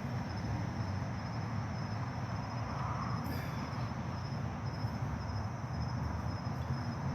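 Outdoor ambience while walking: a steady low rumble with a faint, high-pitched chirp repeating roughly twice a second.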